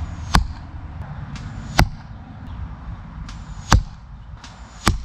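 Four arrows shot from 50 yards striking a backyard archery target one after another, each a sharp, loud hit. A much fainter click about half a second ahead of each of the last three hits is the distant shot of the bow.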